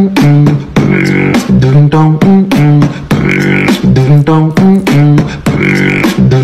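Background music: a loud vocal track with beatbox-style percussion, its phrase repeating about every two and a half seconds.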